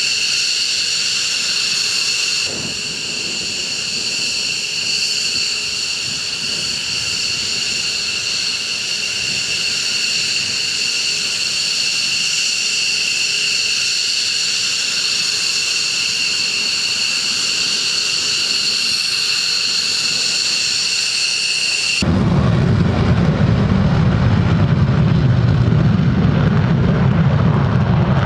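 Jet engines whining steadily with several high, level tones, as at idle or taxi. About 22 seconds in, the sound cuts abruptly to a louder, deep jet rumble.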